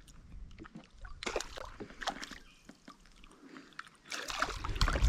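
Water sloshing and splashing against a kayak, with scattered knocks and drips, getting louder near the end.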